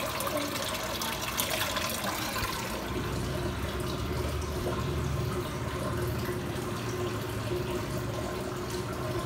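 Water running and splashing steadily into an aquarium tank, with a low hum that grows stronger about three seconds in.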